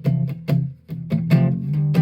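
A.B. Manson "Merlin" plucked string instrument played through an AER Bingo 2 amplifier with no effects. Chords and notes are struck about every half second while the low strings ring on underneath.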